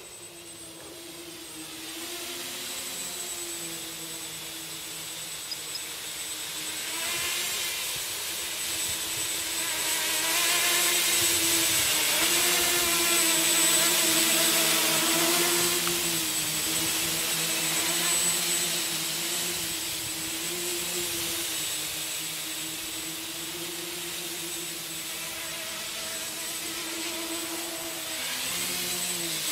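Home-built hexacopter's six electric motors and propellers buzzing in flight, the pitch wavering up and down as the motors speed up and slow down. It grows louder as the craft passes close overhead about halfway through, then fades somewhat.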